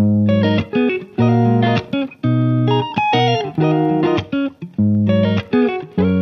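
Background music on guitar: plucked notes in short phrases about a second long, each broken off by a brief gap.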